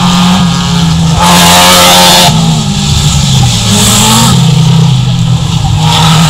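Several dirt-track race cars' engines running hard, revs stepping up and down as they accelerate and lift through the turns, with two louder surges about a second in and around four seconds.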